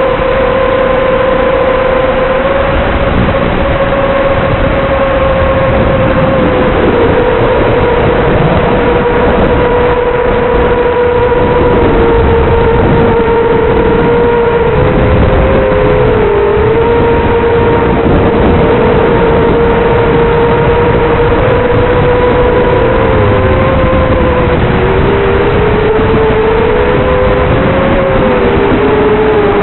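Brushless motors and 3-blade props of a 250-size FPV racing quadcopter in flight, giving a loud, steady whine. The pitch wavers and dips with throttle changes, most noticeably around halfway and in the last few seconds, over a constant rush of air noise.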